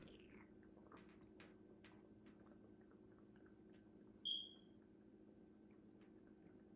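Near silence with faint gulps of a person drinking water from a plastic bottle, and one short high squeak about four seconds in.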